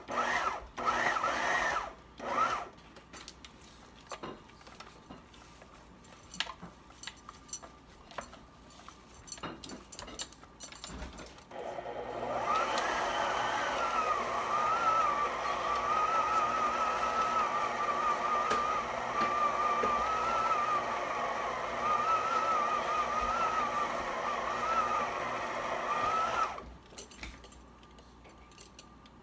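Electric stand mixer running for about fifteen seconds, beating a thick ground-beef meatloaf mixture, its motor whine wavering slightly in pitch. It starts about twelve seconds in and cuts off a few seconds before the end, with scattered clicks and rubbing of handling before it.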